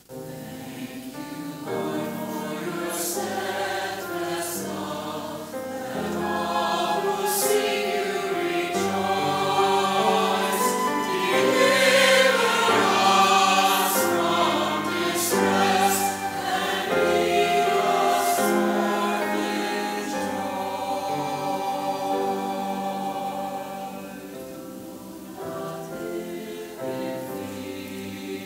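Church choir singing a sacred piece in parts, the sung words' s-sounds cutting through. It builds to its loudest about halfway in and grows softer near the end.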